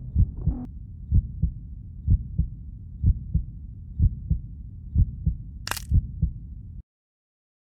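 Heartbeat sound effect: paired low thumps, lub-dub, about once a second. A brief sharp hiss cuts in near six seconds, and everything stops abruptly about seven seconds in.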